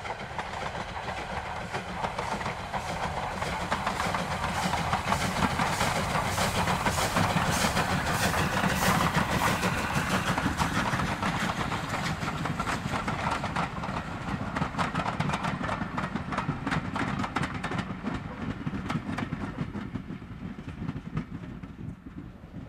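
Double-headed steam train, led by LSWR T9 class 4-4-0 No. 30120, passing with its coaches: wheels clicking over the rail joints in a quick rhythm. It is loudest about halfway through and fades as the last coaches go by near the end.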